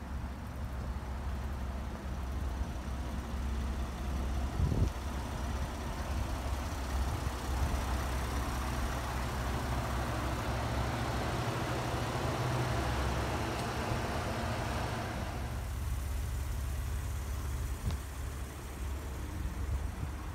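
The 3.5-litre V6 of a 2012 Ford F-150 idling steadily, with a louder hiss in the middle and a couple of short knocks.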